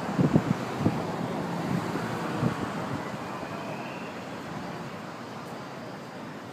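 Low, rumbling vehicle noise that slowly fades, with a few low thumps in the first two and a half seconds.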